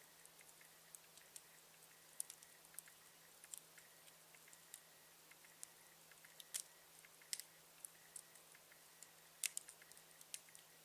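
Campfire crackling: burning wood snapping and popping in irregular sharp clicks, with a few louder pops, the loudest about nine and a half seconds in.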